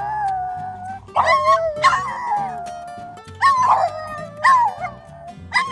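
Two French bulldogs howling and yowling together in a tantrum, one leading and the other joining in. It is a run of about five drawn-out, wavering cries, each starting sharply and sliding down in pitch.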